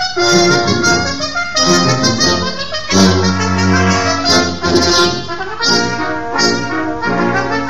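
Instrumental music, several notes sounding together in a steady, moving phrase.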